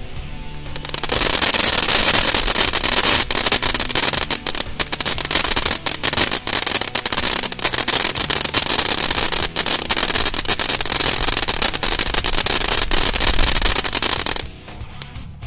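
Black Cat Energizer ground fountain firework spraying sparks: a loud steady hiss dense with sharp crackles, starting about a second in and dying away near the end.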